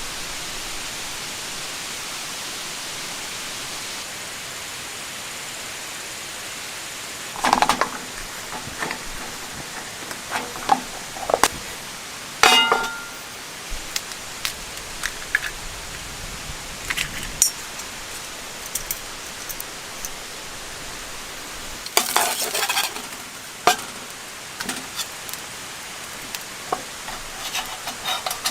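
Steady rain hiss. About seven seconds in, irregular clinks and knocks join it, some with a short ringing tone, with small clusters near 8 s and 22 s.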